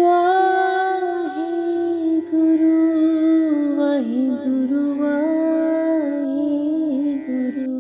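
Devotional music: a woman's voice holding a wordless melody with gliding, ornamented slides over a steady sustained drone. The voice comes in suddenly right at the start.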